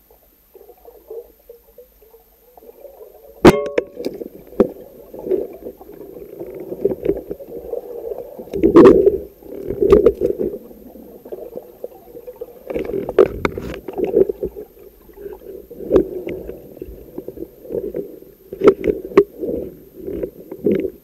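A speargun shot heard underwater, a single sharp crack about three and a half seconds in, hitting a northern pike. It is followed by muffled churning and irregular knocks as the speared pike thrashes on the shaft.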